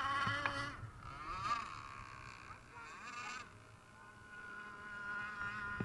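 Small two-stroke gasoline engine of a radio-controlled racing boat running at high revs, heard as a thin, buzzing whine. The pitch wavers over the first seconds, the sound fades briefly past the middle, then comes back as a steady whine.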